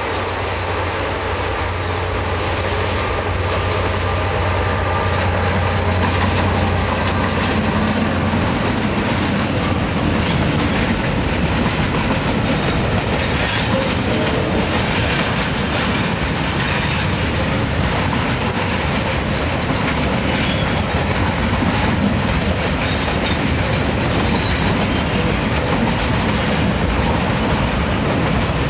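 Freight train passing close by. For the first several seconds the two diesel-electric locomotives, a DFT and a DC class, run with a steady low drone. After that the loaded container and log wagons roll past with a continuous rumble and clatter of steel wheels on the rails.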